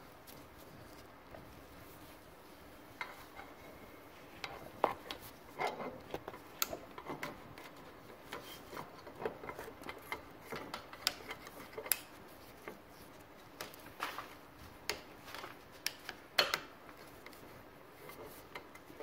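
Irregular metal clicks and short scrapes of a magnet-tipped screwdriver and the reverse gear knocking against the inside of an outboard gearcase as the gear is worked out of the housing. The clicks are sparse at first and come thicker through the middle, with one sharper click near the end.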